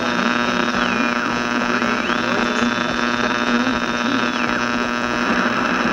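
Old radio's steady hum and static, with a whistle-like tone sliding down and back up in pitch twice. The hiss thickens near the end.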